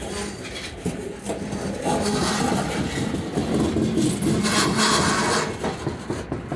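Freight train's covered hopper cars rolling past close by: steady wheel-on-rail noise with repeated clanks and knocks from the wheels and car bodies.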